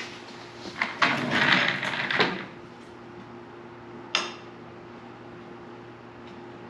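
Metal parts clanking and scraping as a rough-cut steel piece is handled and tried in place on a sawmill head: a clatter lasting about a second starting about a second in, then a single sharp clank about four seconds in, over a faint steady hum.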